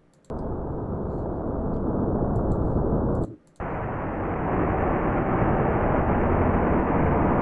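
A soft-rain recording played back heavily distorted, giving a dense, dull static-like hiss with the treble cut away. It drops out briefly about three seconds in and comes back brighter and a little louder.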